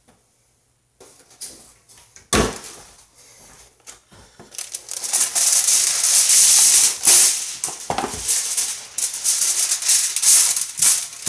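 Aluminum foil crinkling and rustling loudly as it is pulled from the roll and spread over a metal sheet pan, after a single sharp knock about two seconds in.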